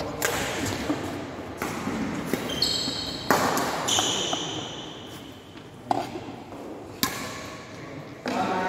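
Badminton rally: rackets strike the shuttlecock with sharp hits about once a second, with a longer gap in the middle, each hit echoing in the hall. Two short high squeaks of shoes on the wooden court floor come around the middle.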